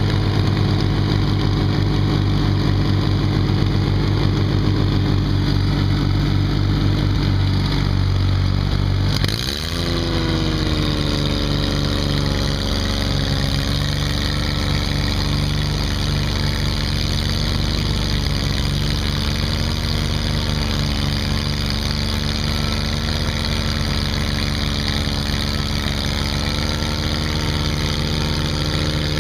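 John Deere 322 garden tractor's three-cylinder Yanmar engine running steadily while pulling a moldboard plow through soil. About nine seconds in the sound dips briefly and the engine note rises, then holds steady at the higher pitch.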